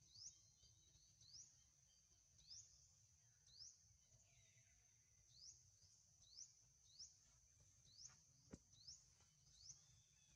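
Faint forest background: a steady high-pitched drone with a short rising chirp repeated about once a second, and a single sharp click a little past eight seconds in.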